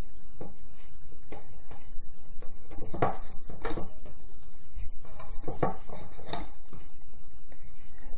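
Scattered light clicks and taps of rubber loom bands being stretched onto the plastic pins of a Rainbow Loom, at irregular moments, over a steady background hiss.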